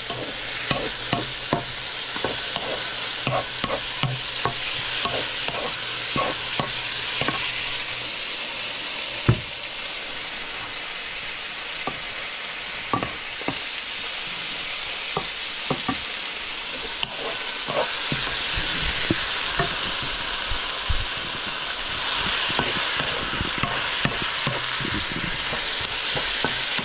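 Food sizzling in a hot frying pan as it is stir-fried, with a utensil clicking and knocking against the pan again and again. The sizzle grows louder near the end.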